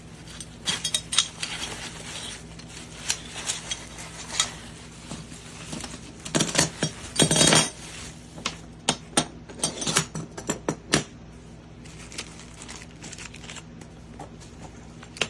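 Metal parts of a cabinet hardware jig kit clinking and clattering as they are handled: irregular clicks and clinks, with a longer, denser stretch of handling noise around seven seconds in.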